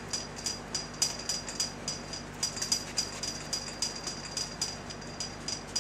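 Microfiber towel rubbed quickly back and forth by hand over glossy painted motorcycle fairing, working in hand glaze. Each stroke gives a short high squeak, about four or five a second, over a steady low hum.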